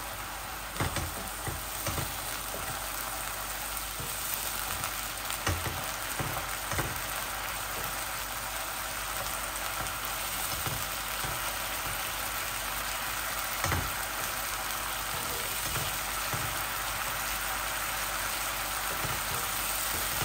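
Chicken pieces sizzling steadily as they fry in a non-stick wok, with a wooden spatula stirring and knocking against the pan now and then. The water from the washed chicken is cooking off and the oil is beginning to separate.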